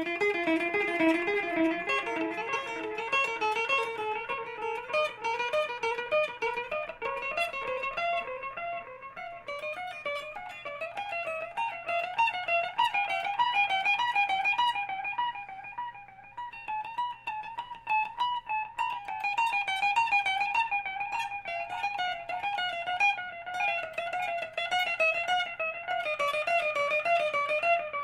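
Electric guitar played through a Caline Ghost Rain reverb delay pedal: a stream of quick single notes, each trailing off in overlapping echoes, with a brief lull about halfway through.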